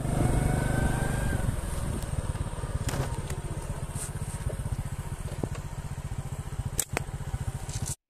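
Motorcycle engine running with a steady, even putter, loudest for the first second and a half and then a little quieter. There are a few sharp clicks along the way.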